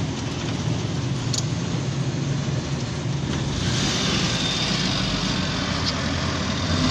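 Suzuki Mehran's three-cylinder petrol engine idling steadily, heard from inside the cabin; a higher hiss joins about halfway through.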